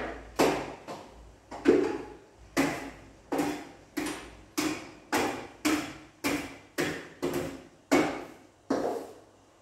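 A steady run of about fifteen knocks, roughly two a second, each dying away quickly.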